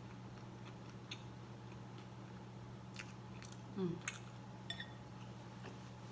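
A person eating noodles and dumplings: soft chewing with scattered small clicks and mouth sounds, including a brief low mouth sound a little before the midpoint. A steady low hum runs underneath.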